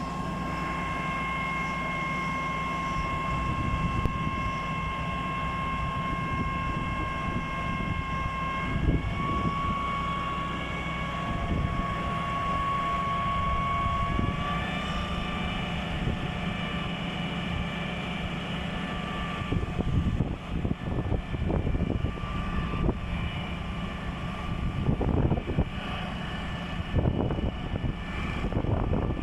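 Putzmeister 42-5 truck-mounted concrete pump running: a steady low rumble with a high whine that steps up in pitch twice, and irregular knocks near the end.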